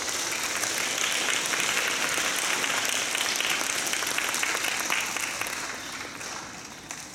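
Audience applauding, a dense patter of clapping that thins and fades over the last couple of seconds.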